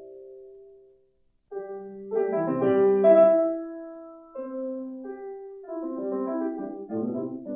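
Solo classical piano music: slow chords and single notes, which fade out to a brief silence about a second in and then begin again.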